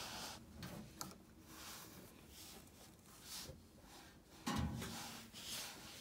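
Faint rubbing and scuffing of a vinegar-soaked rag being worked around inside a front-loading washer's drain-pump filter housing, wiping the O-ring seat, in soft irregular strokes.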